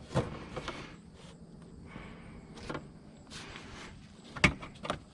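Scattered clicks and knocks of plastic car trim being handled and pressed into place, about six in all, the loudest a sharp knock about four and a half seconds in.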